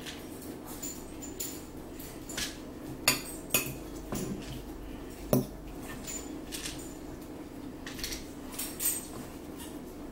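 Metal fork clinking and scraping against a salad bowl while spinach salad is forked up. It comes as scattered short clicks, with a few louder ones.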